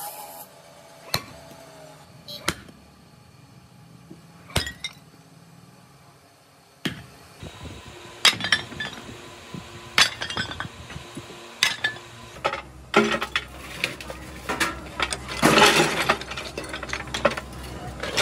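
Sledgehammer blows on cast-iron truck brake drums, single sharp strikes a second or two apart, as the drums are broken into pieces. Then comes the clanking of broken cast-iron scrap pieces rattling against each other and into a steel hopper, thickening into a dense clatter near the end.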